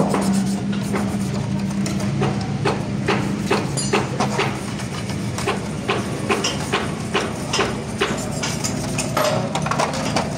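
A hand scraper rasping and clicking along the edge of an aluminium engine cover in quick, irregular strokes as old gasket material is scraped off, over a steady low hum.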